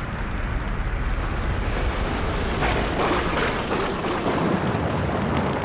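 Continuous deep rumble of a volcanic eruption, heavy in the lows, swelling louder a few times around the middle.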